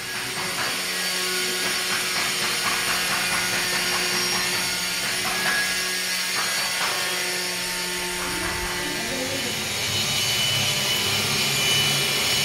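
A power tool running steadily, a continuous hiss-like drone with a few steady whining tones and occasional clicks, with faint voices in the background.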